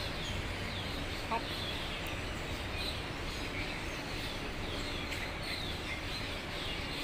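Many birds chirping steadily, short falling chirps about two a second, over a steady low background rumble. One brief tap about a second and a half in.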